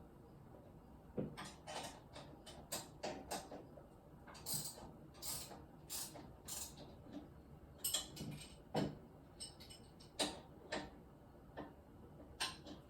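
Irregular clicks, clinks and short scrapes of hand tools and metal parts during repair work on a lift, about one to three knocks a second at uneven loudness.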